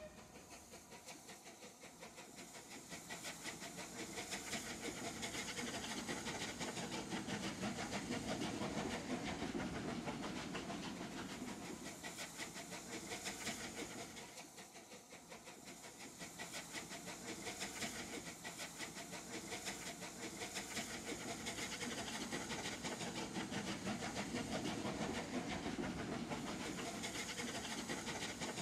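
Bulleid Light Pacific No. 34028 Eddystone, a three-cylinder steam locomotive, working a train. Its exhaust beats come rapid and even over a steady hiss of steam, dip briefly about halfway, then pick up again.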